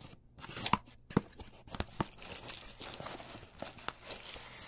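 Parcel packaging being torn open and crinkled by hand: a few sharp ticks and snaps in the first two seconds, then steady rustling and crackling of the wrapping.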